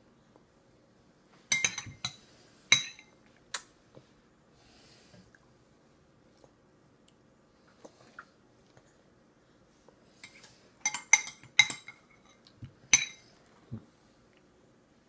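Metal spoon clinking against a bowl as soup is scooped: a cluster of sharp ringing clinks about one and a half seconds in, and another about eleven seconds in.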